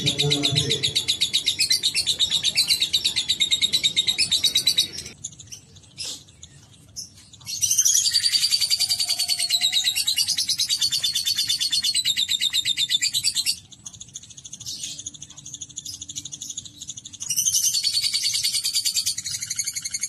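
Lovebird giving its 'ngekek' song: long runs of very fast, high-pitched chattering trill, each several seconds long, three times with short pauses between. This is the long chatter that keepers prize and train for.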